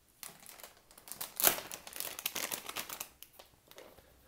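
Thin plastic parts bag crinkling as it is handled and opened. The crackling is dense for about two seconds and loudest about a second and a half in.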